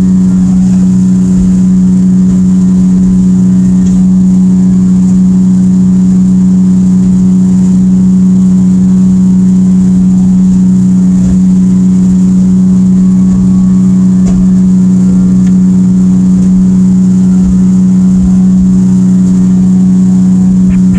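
Evinrude 115 E-TEC two-stroke outboard running steadily at planing speed, a loud even hum that holds one pitch throughout.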